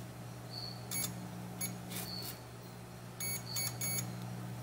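Continuity buzzer of an FY9805 digital multimeter giving several short, high-pitched beeps as the probe tips touch capacitor pads on a tablet board, with faint probe clicks. A beep marks continuity to ground: capacitors in the tablet's power circuit shorted to ground. A steady low electrical hum runs underneath.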